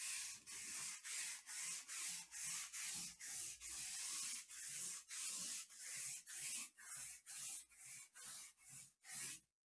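Trading cards being slid one over another by hand, a rhythmic papery swish about two to three times a second that stops near the end.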